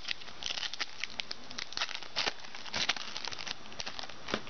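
Football trading cards being handled and flipped through, with irregular light rustles and clicks of card stock and pack paper.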